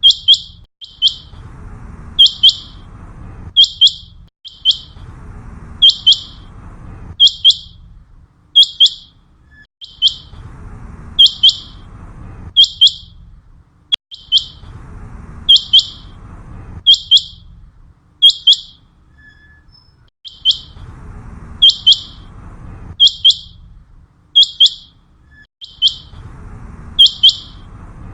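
Common quail calling: short, sharp, high notes in quick groups, repeated over and over about every second or so. A low rumble comes and goes under the calls.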